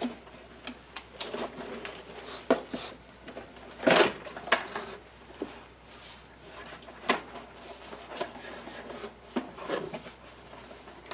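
Cardboard box and packing being handled as a toy quadcopter is pulled loose from them: irregular scraping and rustling with scattered knocks, the loudest a sharp knock about four seconds in.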